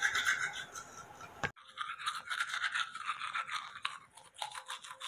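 Teeth being brushed with a toothbrush: quick, rhythmic, scratchy scrubbing strokes, with an abrupt cut in the sound about a second and a half in.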